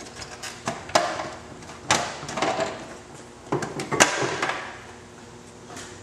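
Workshop handling noises: a series of sharp knocks and clicks with short rustling clatter after them, the loudest about two and four seconds in, as parts and tools are handled on the motorcycle. It goes quieter in the last second or so.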